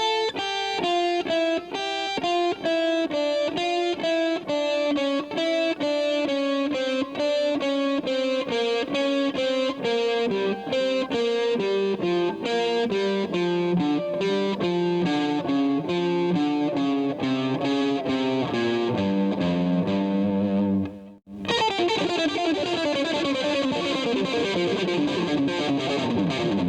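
Electric guitar playing a scale-sequence exercise on a G Dorian and blues scale combination: a repeating pattern of four-note groups, about four notes a second, working steadily downward. After a brief break near the end, a faster run falls to a held low note.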